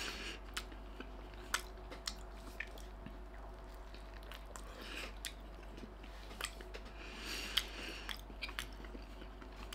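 A person chewing a mouthful of piri piri chicken tortilla wrap, with wet mouth sounds and small clicks. Partway through, another bite is taken from the wrap.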